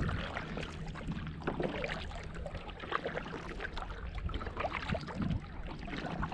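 Kayak on the water: light splashing and lapping with scattered small knocks and drips, over a steady low rumble of wind on the microphone.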